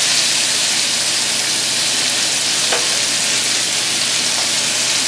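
Cubed chicken breast sizzling in hot olive oil in a nonstick skillet: a steady frying hiss, with a single light tap a little under three seconds in.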